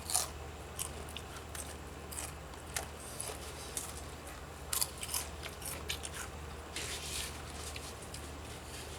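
Irregular short crunches and crackles from eating crunchy spicy chips, over a low steady hum.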